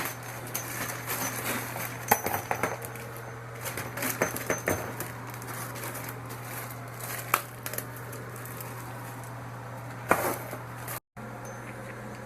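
Washing-machine water supply hoses and their metal fittings being handled during hookup: irregular clinks and knocks, a few sharper than the rest, over a steady low hum.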